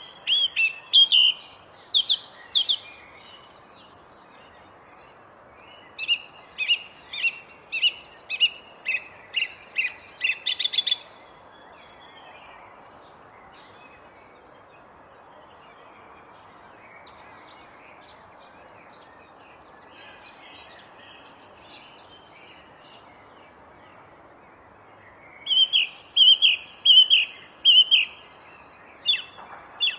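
A songbird singing in phrases of rapid, repeated high chirps: a burst at the start, a longer run a few seconds later, then a long pause before it sings again near the end. A faint steady outdoor hiss sits underneath.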